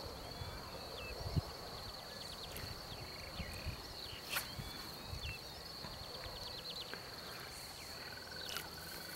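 Open-air ambience of a riverside meadow: a steady high-pitched insect drone with scattered short animal chirps, a couple of sharp clicks and some soft low thumps. Near the end a pulsing, mid-pitched trill starts up.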